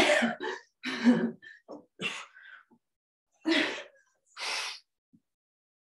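A woman's short, forceful exhales with the effort of sit-ups with a dumbbell press, about five of them roughly a second apart, one with a slight grunt in it.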